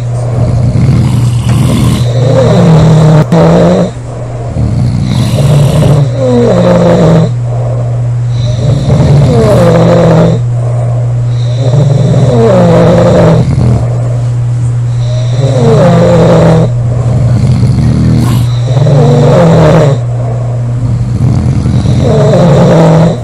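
Women snoring heavily, one snore after another every second or two in an uneven, overlapping rhythm, over a steady low hum.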